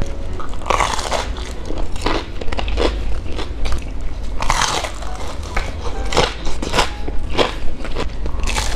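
Close-miked bites and chewing of crispy deep-fried banana fritters, the batter crust crunching with each bite, about once a second. Near the end comes a bite into a sesame-coated fried glutinous rice ball (bánh cam).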